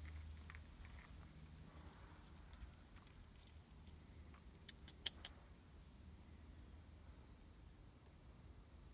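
Insects chirping in a steady, even pulse, with a higher continuous trill above it. A few faint clicks, and one sharper click about five seconds in.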